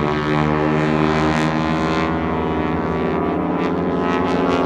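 Engines of aerobatic display airplanes flying a smoke-trail routine, heard as a steady drone of several pitches that drift slightly.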